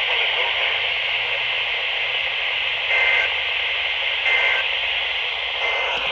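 Steady radio static hiss from a weak broadcast signal, with three short bursts of EAS digital data tones evenly spaced in the second half.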